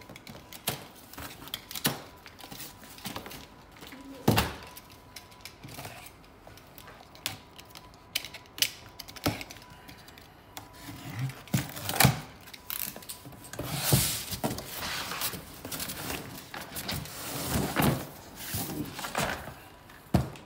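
Unboxing a cardboard shipping carton: a utility knife cutting through plastic packing straps and slicing along packing tape, then cardboard flaps and an inner box being handled. The result is a string of irregular clicks and thunks, with scraping, rustling stretches in the second half.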